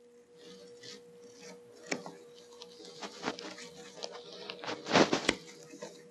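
Shears snipping through convertible top fabric, trimming it off close to the staples: a few scattered snips, the loudest pair about five seconds in, over a faint steady hum.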